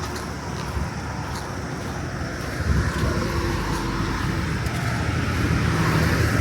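Motor vehicle traffic going by, a low engine rumble that grows slowly louder toward the end.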